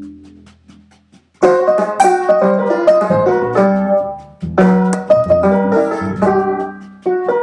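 Solo toy piano playing a jazzy tune. A phrase fades out in the first second, then after a short quiet new phrases of bright struck notes begin, each note ringing and dying away.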